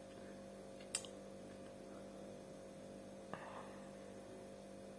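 Steady low electrical hum, with a single faint click about a second in.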